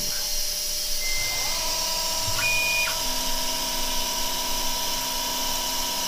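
Milling machine spindle spinning up to a steady whine as a drill bores bolt holes in a cast aluminium part. Over it runs the steady hiss of an air-blown mist coolant spray.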